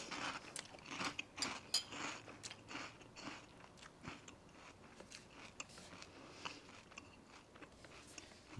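Crunchy protein cereal in milk being bitten and chewed: a run of irregular, close crunches, strongest over the first couple of seconds and softer after.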